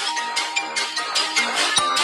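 Upbeat background music with a steady beat and bright, bell-like notes.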